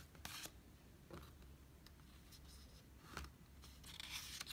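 Faint rustling of a photobook's pages under the hands: a few soft, brief brushes of paper, with a longer rustle near the end.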